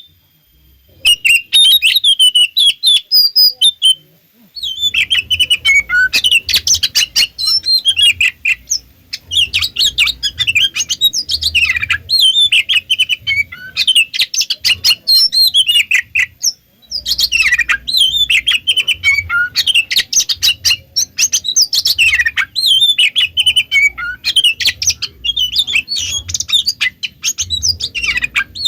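Oriental magpie-robin (kacer) singing a fast, varied, chattering song of sharp whistles and clicky notes in long phrases with brief pauses. This is the excited, agitated 'konslet' singing used to provoke other magpie-robins into answering.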